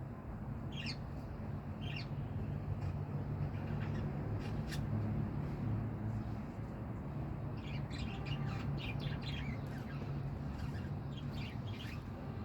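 Pet lovebirds chirping and squawking in short, scattered calls, busiest about two-thirds of the way in, over a steady low hum.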